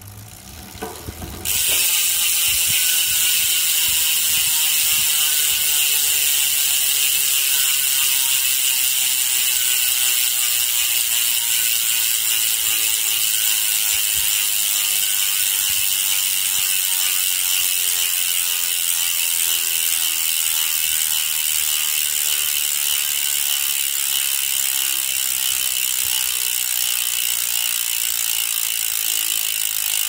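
Hope Pro 4 Boost rear hub freewheeling: the freehub's four pawls clicking over its 44-point ratchet ring in a loud, rapid buzz. It starts about a second and a half in after a few single clicks, and drops slowly in pitch as the wheel coasts and slows.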